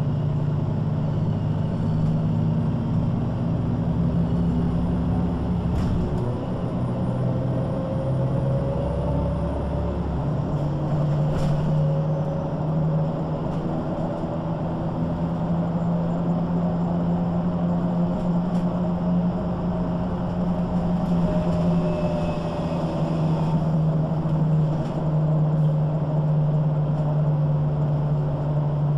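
MAN NG 313 articulated bus (Lion's City G) under way, heard inside the passenger cabin: its six-cylinder diesel engine drones steadily, and a whine from the ZF gearbox rises and falls as the bus speeds up and slows, with a few faint rattles.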